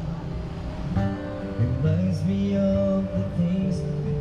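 Acoustic guitar music with a singing voice carrying a melody.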